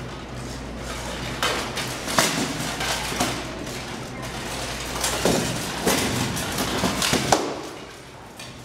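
Rattan sword blows striking shields and armour: two flurries of sharp knocks that echo in a large hard-floored hall, the loudest about two seconds in and near the end, with shuffling footsteps and a steady low hum underneath.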